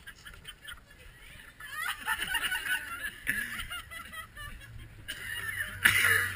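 People's voices laughing and calling out in high, honking sounds, with a louder outburst about six seconds in.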